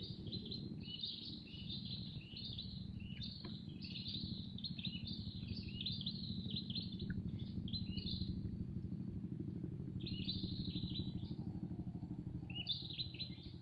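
Small birds chirping in quick, busy calls for about the first eight seconds, then in two shorter bursts near the end, over a steady low hum.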